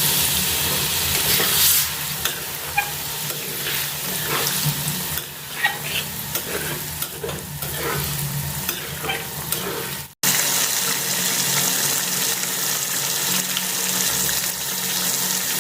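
Chicken for a curry sizzling as it fries in a pan, with a spoon clinking and scraping as it is stirred. The sound drops out for an instant about ten seconds in, then the frying goes on.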